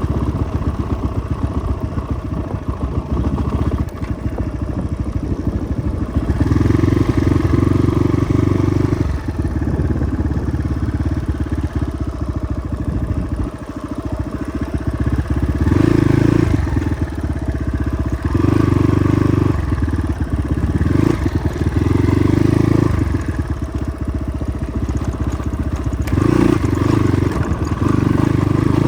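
Motorcycle engine running steadily, growing louder for stretches of a second or a few several times over.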